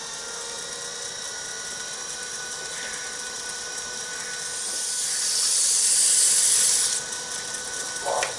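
Wood lathe running at speed with a steady motor whine. From about four and a half seconds in, 100-grit sandpaper held against the spinning, linseed-oiled wooden box lid adds a loud hiss that stops suddenly about seven seconds in: the final sanding after the oil has dried in.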